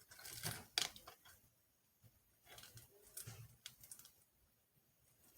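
Close-up chewing of crispy air-fried chicken dumplings: two bouts of crunchy, crackling bites and chews with a short pause between.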